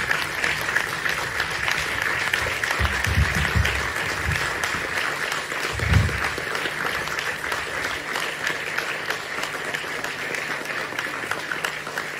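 Audience applauding, the clapping slowly dying down. A few low thumps about three seconds in and a sharper one about six seconds in.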